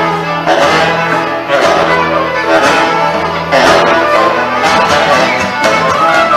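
Live folk dance band playing a contra dance tune: fiddle on the melody with saxophones and string accompaniment, accented on a steady beat about once a second.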